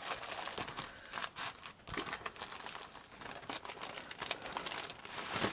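Paper and card craft pieces being pushed back into their packet, rustling and crinkling in many small irregular bursts as they are handled.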